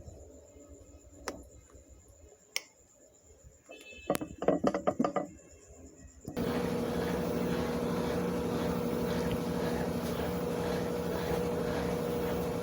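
A few sharp clicks and a quick run of knocks from a Consul washing machine. About six seconds in, its drain pump starts with a steady hum and rushing water, marking the machine's drain stage.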